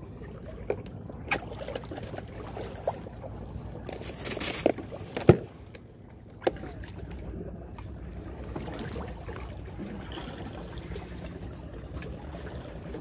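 Plastic cooler box being handled: a few clicks and knocks of its lid and latch, the loudest a sharp knock about five seconds in, over a steady low wash of wind and sea.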